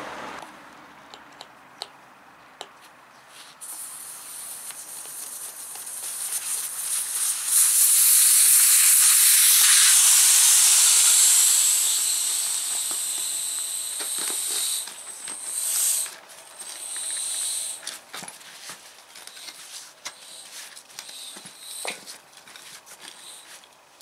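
Air hissing out through the open valve of a wheelbarrow tyre's inner tube as the tyre is deflated. The hiss starts a few seconds in, swells to its loudest midway, then sputters and fades out as the tube empties.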